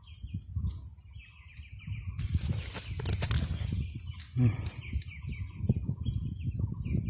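Forest ambience: a steady high insect drone of crickets or cicadas, with short repeated bird chirps and a burst of rustling through vegetation about two to three seconds in.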